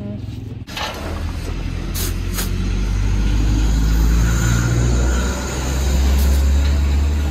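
A motor vehicle's engine running close by, a steady low rumble that swells about four seconds in and again near the end. There are a few light knocks in the first couple of seconds.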